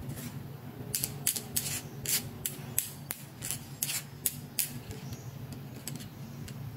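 Plastic beads of a toy bracelet clicking and rattling as it is handled: a quick run of about a dozen sharp clicks over three or four seconds, then a few faint ticks, over a steady low hum.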